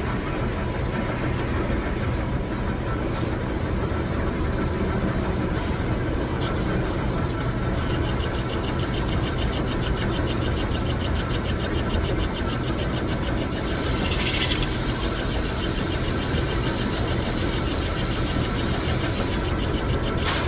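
Metal lathe running with a steady mechanical hum. About eight seconds in, a fast, even ticking joins in the upper range, and there is a short hiss near the middle.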